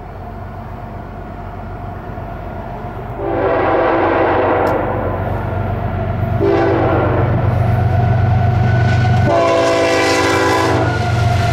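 GE ES44C4 diesel locomotive approaching a grade crossing, its engine rumble growing louder, as it sounds its air horn for the crossing in three blasts: a long one about three seconds in, a shorter one about six seconds in, and another long one near nine seconds.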